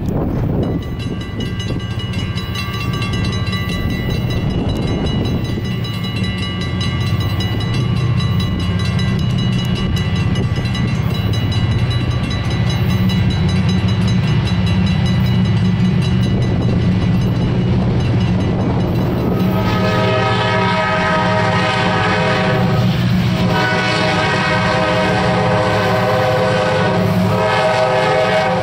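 Diesel freight locomotives approaching, their engines a steady low rumble. About two-thirds of the way in, the lead locomotive's air horn starts blowing in long blasts with brief breaks between them.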